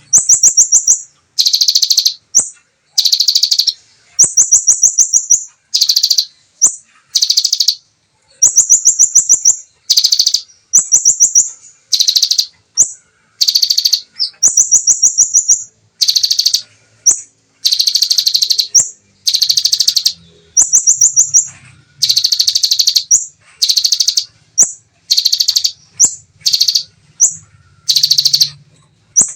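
Kolibri ninja (Van Hasselt's sunbird) singing fast, dense rapid-fire "shooting" phrases in the style of the bar-winged prinia (ciblek). Each phrase is a burst of very rapid, high ticking notes lasting about a second, followed by a short high note, and the phrases repeat about every two seconds.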